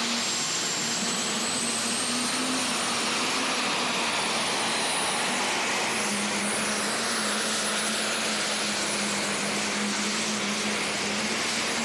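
International super stock diesel pulling tractor running flat out under full load as it drags the weight-transfer sled. A high turbocharger whine rises over the first few seconds, then holds steady over the engine's loud running.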